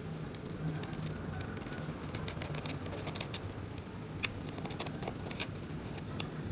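Scattered light clicks and ticks of small laptop parts and a screw being handled and fitted into an HDD caddy, over a faint low steady hum.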